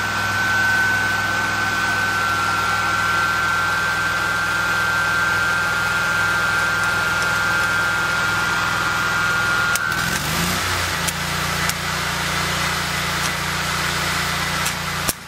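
Stick welding: the welder hums and the arc buzzes with a steady high whine. About ten seconds in it turns to a denser sizzling crackle with spatter pops, then breaks off suddenly near the end. The rod is held too far from the work, making a long arc.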